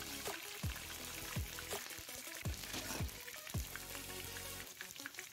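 Sliced onions sizzling steadily in hot oil in a wok, under background music with a deep bass beat that drops in pitch on each hit.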